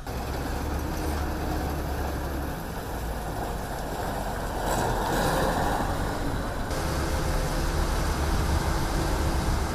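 Heavy work machinery running, a steady low engine rumble, with a brief hiss about halfway through.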